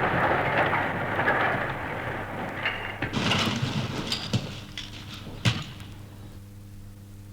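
An old recorded sound effect of rushing, rain-like noise fading away, followed by a handful of sharp clicks and knocks, the last one the loudest. A steady low hum is left near the end.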